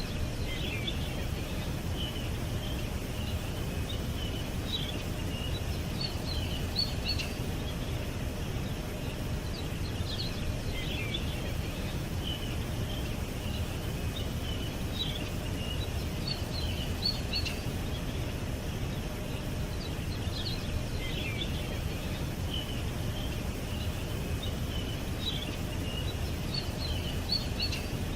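Small birds chirping in short high calls and quick sweeps over a steady low rumble of background noise. The same run of calls repeats about every ten seconds, like a loop.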